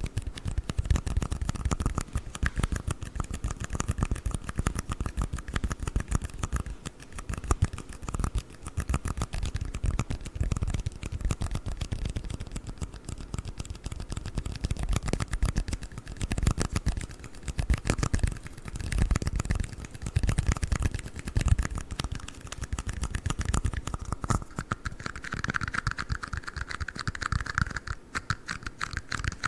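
Red plastic cups being tapped and scratched close to the microphone: a fast, dense stream of clicks and scratches, with a faint higher squeak-like tone for a few seconds near the end.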